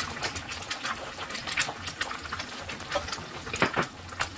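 Eggs frying in hot oil in a nonstick pan: steady sizzling with many sharp, irregular pops and crackles of spattering oil.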